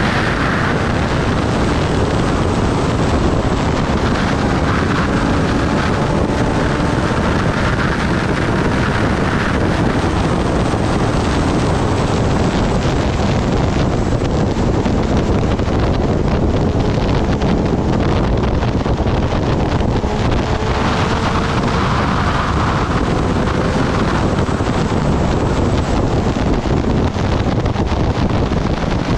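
Steady heavy wind rush on the microphone of a Kawasaki Ninja ZX-10R riding at high speed, with the bike's inline-four engine note faint beneath it, its pitch drifting slowly as the bike slows down.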